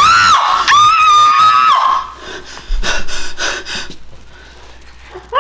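A high-pitched voice giving two long wordless cries in the first two seconds, then a series of short gasping breaths.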